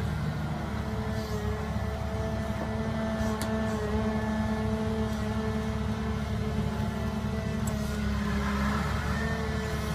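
Wheeled excavator's diesel engine running steadily with a constant hum while the machine works its bucket.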